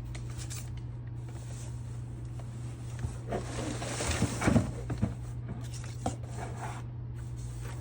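Unpacking noises: light rustling and a few soft knocks as a package is unpacked, loudest about four and a half seconds in, over a steady low hum.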